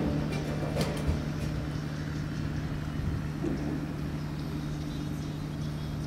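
A steady low hum over a low rumble, with the last of the music fading out in the first second or two.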